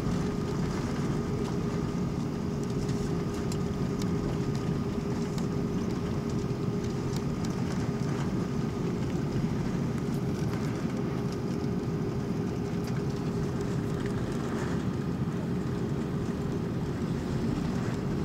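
Steady cabin noise inside an Airbus A330-300 taxiing, its wing-mounted jet engines running at taxi power: a low, even rumble with a constant hum.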